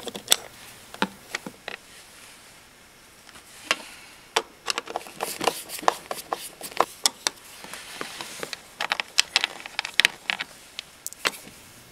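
Screwdriver backing screws out of a plastic battery-compartment panel on a scooter floorboard: irregular small clicks and short scrapes of the screwdriver and screws against the plastic, coming thicker in the second half.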